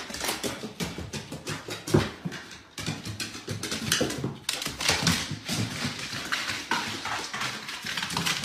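A dog's paws and claws clattering on hardwood stairs as it goes down, a quick, irregular run of taps and clicks.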